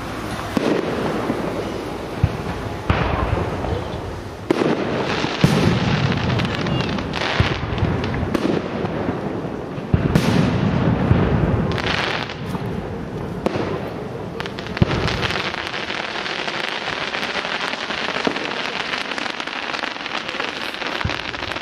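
Class 4 display firework shells bursting overhead: a string of sharp booms one to two seconds apart, each followed by a low rumble, over a steady crackle. The booms thin out after about fifteen seconds, leaving mostly the crackle and a couple of isolated bangs.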